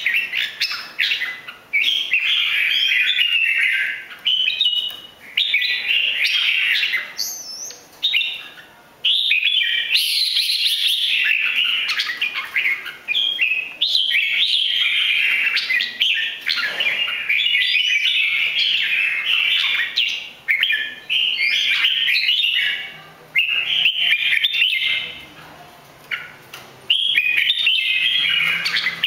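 Red-whiskered bulbul singing: quick, loud runs of chirping and warbling phrases one after another, broken by a few short pauses.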